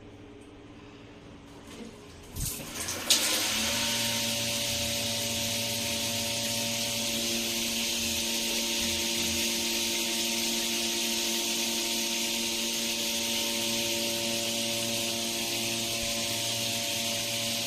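A couple of clicks, then a shower head starts spraying water about three seconds in, with a steady hiss and the even, multi-tone whine of the water heater's DC booster pump running under it.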